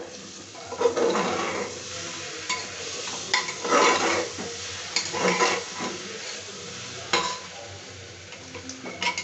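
A long steel spoon stirring and scraping chana chole in an open aluminium pressure cooker, the metal spoon grating and knocking against the pot walls in uneven strokes over a steady sizzle of the food frying on the flame.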